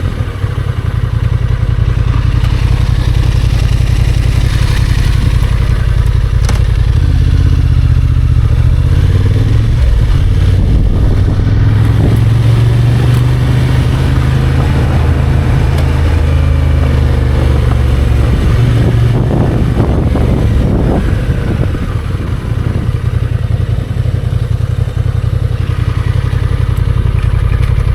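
Motorcycle engine running under way, a steady loud engine note that steps up and down a few times with the throttle.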